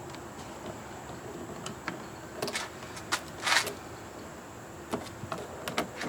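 Hand work cleaning leftover adhesive off a truck's door handle: scattered sharp clicks and two short scraping sounds, about two and a half and three and a half seconds in, over a steady high whine.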